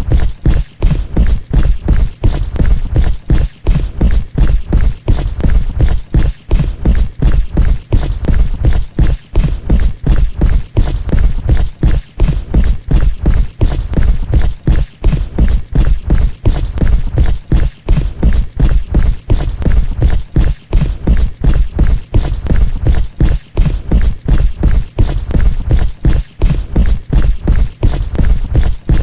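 Heavy footsteps: a fast, unbroken run of loud, deep thuds.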